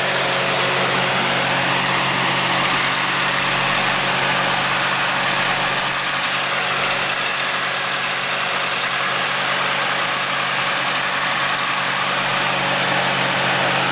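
2001 Mitsubishi Galant engine running steadily in drive against the brake with a little throttle, under extra load from the air conditioning, defrost and high beams; it has a running random multiple-cylinder misfire.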